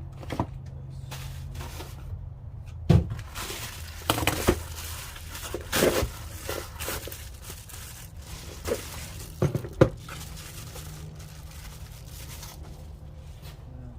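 Tool packages being unpacked and handled: several sharp knocks and clatters with rustling of packaging, most of them between about 3 and 10 seconds in, over a steady low hum.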